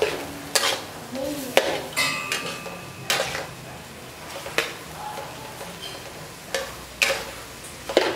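Metal ladle scraping and clanking against a stainless steel wok while stir-frying bamboo shoot strips and beef, in about nine irregular strokes. One stroke about two seconds in leaves a short metallic ring.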